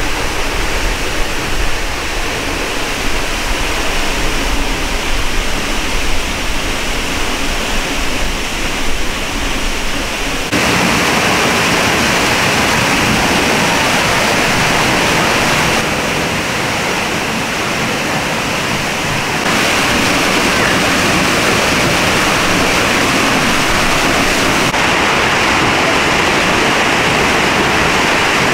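Steinsdalsfossen waterfall crashing down, a loud steady rush of falling water heard close up from the path behind the water curtain. The rush steps up abruptly about ten seconds in.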